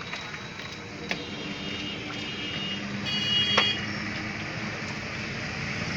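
Steady background noise like passing street traffic, with a brief high-pitched tone about three seconds in and a sharp click just after it.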